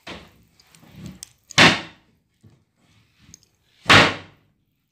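Lift-up doors of upper kitchen wall cabinets, mounted on gas struts, pulled down and shut: two loud closing bangs about two and a half seconds apart.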